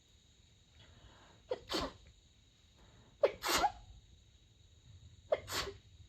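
A woman sneezing three times in a row, about two seconds apart, as part of a sneezing fit. Each sneeze is a short sharp catch followed straight away by the main burst, and the middle one is the loudest.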